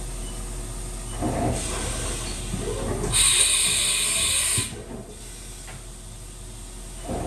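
A 2003 Haas VF-3 vertical machining center running with a steady hum and some mechanical clatter, then a loud hiss lasting about a second and a half, starting about three seconds in.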